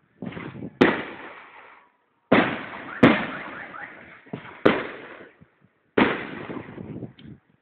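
Fireworks bursting in the sky: about five loud bangs at uneven intervals, each trailing off in a rumbling echo, with softer pops in between.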